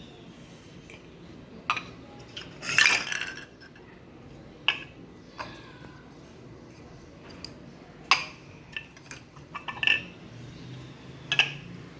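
Toy pieces being handled, clinking and knocking together in a few separate sharp clicks, with the loudest cluster about three seconds in.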